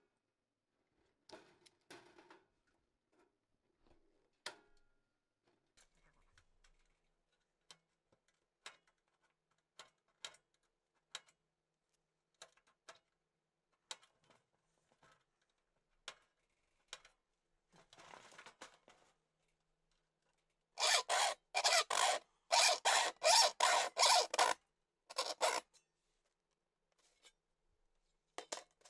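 Light scattered clicks and taps of sheet-metal parts being handled, then, about 21 seconds in, a quick run of about a dozen loud rasping strokes of a file on the edge of a steel sheet, with a couple more a second later.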